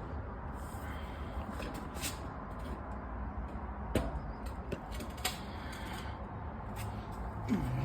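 Scattered clicks and light knocks of a 3/8 socket working a screw out of the front panel of a Dixie Narco 5591 beverage vending machine, with a couple of short squeaks, over a steady low hum.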